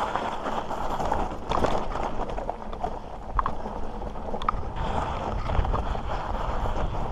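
Mountain bike rolling over loose rock, sand and slickrock: tyres crunching and the bike rattling, with a few sharp knocks as it hits stones and wind rumbling on the microphone.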